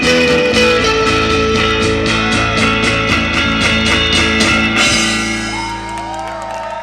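Surf rock played on electric guitar and drum kit with a steady beat, ending on a final chord about five seconds in that rings on and fades away.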